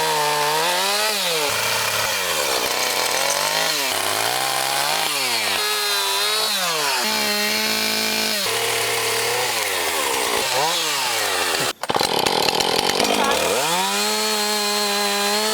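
Chainsaw engine running loud and revving up and down again and again, its pitch falling and climbing every second or two. The sound dips for a moment about twelve seconds in, then comes back at a high, steady pitch.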